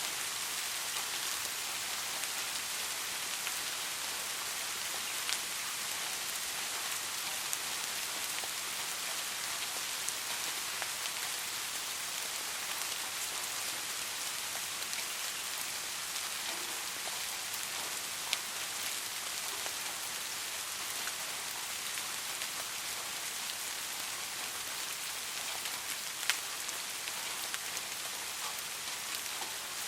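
Steady rain falling, an even hiss with scattered sharper drops striking a surface.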